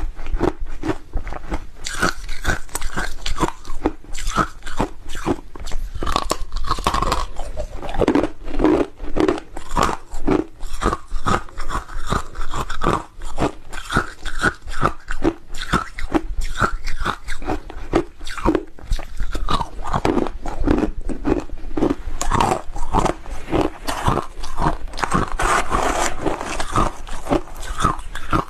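Hard ice being bitten and chewed, a continuous run of crisp crunches and cracks close to a clip-on microphone.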